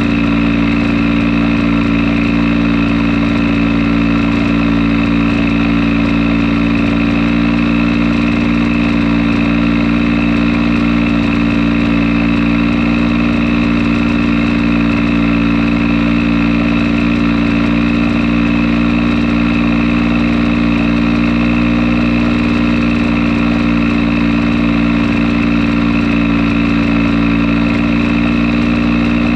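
Fichtel & Sachs ST-204 two-stroke engine of a portable generator set running at a steady, constant speed on a test run.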